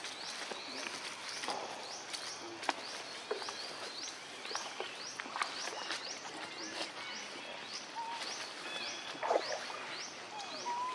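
Outdoor forest ambience: a high chirp rising in pitch, repeated steadily about twice a second, over rustling and a few sharp clicks from macaques moving on dry leaves and plastic sheeting.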